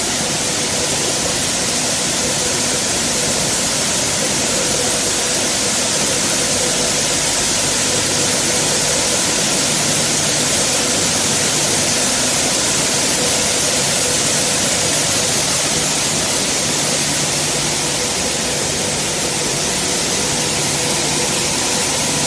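Maize milling plant machinery running: a loud, steady, dense mechanical noise with a steady hum underneath.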